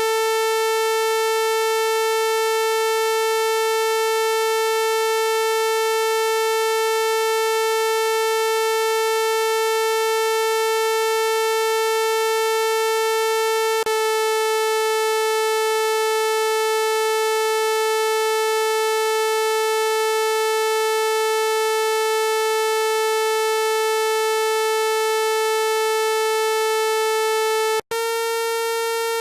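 Homemade analog voltage-controlled oscillator on a breadboard, tuned to about 440 Hz (A4), giving a steady buzzy tone rich in overtones. About halfway through its tone colour changes abruptly, and near the end it cuts out for an instant and comes back with yet another tone colour, as the output moves to a different waveform.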